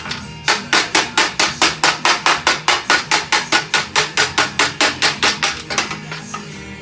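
Hammer striking metal in a fast, even run of about thirty blows, roughly five a second, stopping just before six seconds in.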